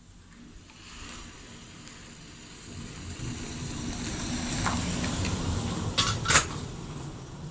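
Tea being poured from a metal teapot into glass tea glasses, with a car passing close behind whose low rumble swells and fades. About six seconds in come two sharp clinks of the tea things as the pouring ends.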